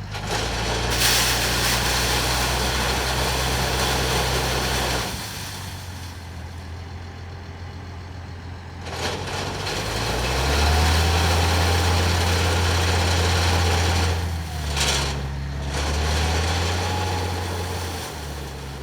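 Heavy diesel engine of sugar cane haulage machinery running under load, its pitch shifting and revving up about halfway through. Stretches of broad hissing noise come with it, including a short sharp hiss near the end.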